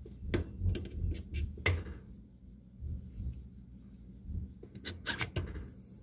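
Needle-nose pliers clicking against the plastic filter screen and inlet fitting of a washer's cold-water inlet valve as the screen is worked out for inspection. Sharp clicks come in a quick run during the first two seconds and again in a short cluster about five seconds in.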